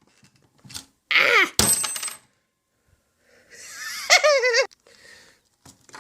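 Sharp metallic clinks and scraping as a phone is pried and worked apart with tools, with a short wavering squeal near the end.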